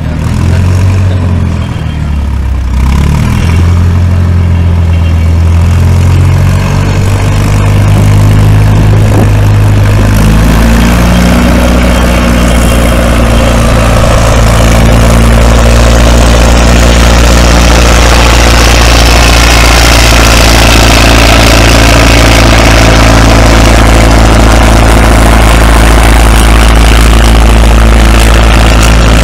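Vintage farm tractor engine working under load as it drags a weight-transfer pulling sled, running unevenly at first and then opening up about ten seconds in to a loud, steady full-throttle pull.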